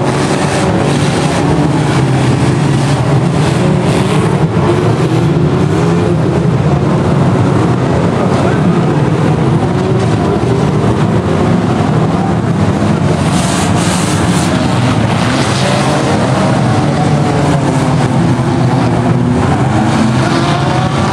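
Engines of many old pre-1970 banger cars running and revving together in a demolition derby, several pitches rising and falling over one another.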